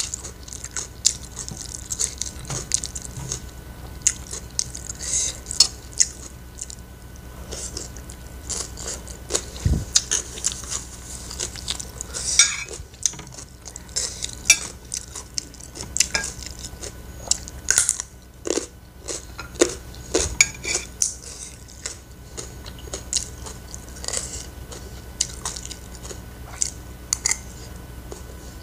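A person chewing and biting fried rice and sides, with many small crackly mouth sounds, and a metal spoon and fork scraping and clinking on a ceramic plate between mouthfuls.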